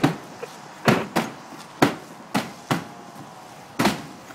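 A firefighter's axe chopping into plywood roof sheathing to cut a ventilation hole: about seven sharp strikes at an uneven pace.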